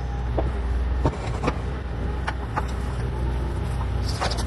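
Bobcat E40 compact excavator's diesel engine running steadily, with scattered sharp knocks from the machine working, several of them close together near the end.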